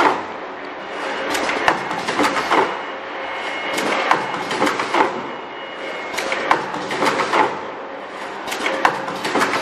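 Richpeace automatic mask earloop welding machine running: a steady mechanical noise with sharp clacks and clicks coming in clusters about every second.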